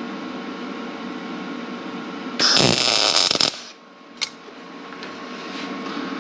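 A Lincoln POWER MIG 210 MP welder's arc crackles for about a second as a nut is welded onto a broken exhaust stud to get the stud out. A single sharp click follows shortly after, over a steady background hum.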